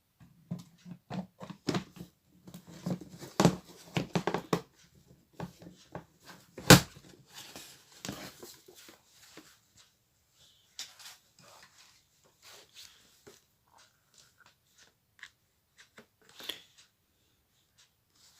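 Plastic casing of a small Bluetooth speaker being handled and fitted back together: irregular clicks, knocks and rustles, busiest over the first few seconds, with one sharp loud snap about seven seconds in and scattered lighter clicks after.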